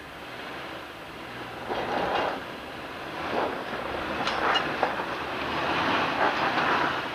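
Jeep Wrangler grinding up a rocky ledge: engine working and tires scrabbling and crunching over rock, with scattered knocks and clatters. The wheels are slipping for grip. It gets louder as the Jeep comes closer.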